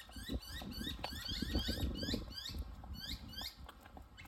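Miniature schnauzer whining in a quick run of short, high, rising whines, several a second, that slow down and stop about three and a half seconds in, as he strains on the leash towards a cat. Underneath is a low rumble with light knocks from walking.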